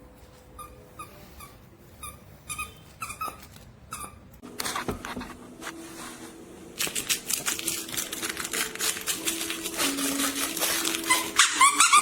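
A plush squeaky dog toy being chewed by a dog. For the first few seconds it gives short repeated squeaks. It then turns into dense rapid clicking and rustling of fabric, with a rising squeak near the end.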